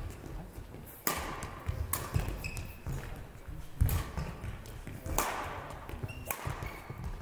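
Badminton play: a string of sharp racket hits and knocks, about one every second or two, with short high squeaks, echoing in a large sports hall.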